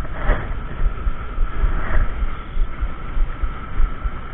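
Wind buffeting a small action camera's microphone, an uneven low rumble.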